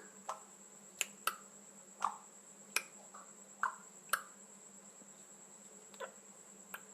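A pet parrot making a series of sharp, irregular clicks, about ten over several seconds, some with a short chirp.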